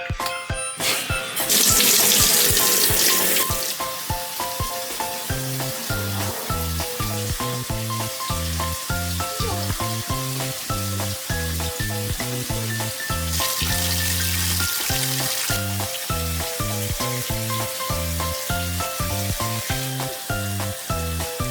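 Background music with a steady beat and a melody, a bass line coming in about five seconds in. Twice, about a second in and again about thirteen seconds in, a loud hiss lasts about two seconds over it.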